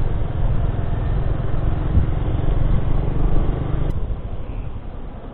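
Single-cylinder Honda Blade underbone motorcycle running at riding speed, its engine mixed with a steady low wind and road rumble on the rider's microphone. The sound drops abruptly to a quieter level about four seconds in.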